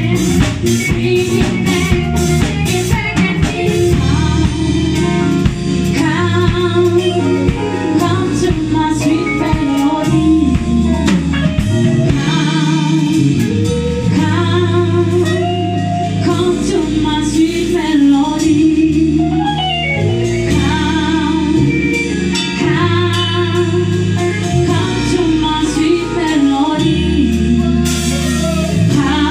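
Live band playing a song: a woman singing lead over electric guitars, a Roland Juno-Di keyboard and a drum kit. The singing comes in about four seconds in, over the band playing steadily.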